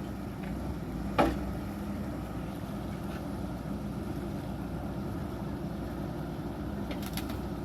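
Caterpillar 420F backhoe loader's diesel engine running steadily, with one sharp knock about a second in and a few light clicks near the end.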